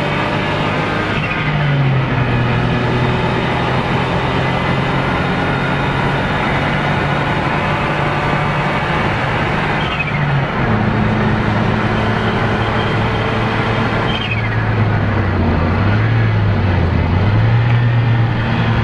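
Car engine heard from inside the cabin while driving a lap of a race circuit, running at fairly steady revs over road and wind noise. Its pitch steps down about a second and a half in and again around ten seconds, then dips and climbs back near the end.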